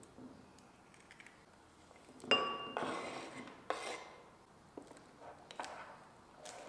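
A sharp clink with a brief ring as the ceramic bowl is struck, about two seconds in. Then a knife scrapes chopped green pepper off a wooden cutting board into the bowl, and a few light knocks follow.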